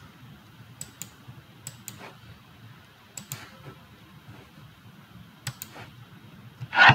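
Computer mouse clicking in quick press-and-release pairs, four times over a few seconds, with a few lighter ticks between. A short, louder rushing noise comes near the end.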